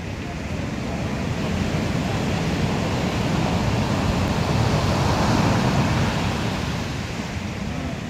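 Heavy surf: a big wave breaking and rushing up the shore. The rush builds to a peak about five seconds in, then eases.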